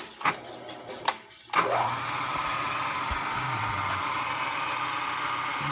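A few sharp clicks, then a milling machine's spindle motor starts about a second and a half in, spins up and runs steadily.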